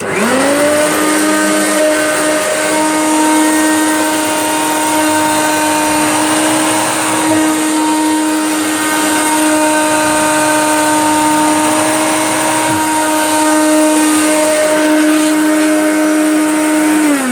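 Hoover Turbomaster vacuum cleaner switched on, its motor spinning up to a steady whine and running at full suction, then switched off near the end, the pitch falling as it winds down.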